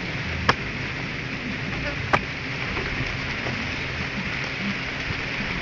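A hoe striking the ground twice, two sharp knocks about a second and a half apart, over a steady hiss.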